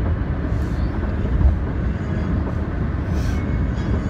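Steady low road and engine rumble heard inside the cabin of a moving car, with a few faint brief rustles.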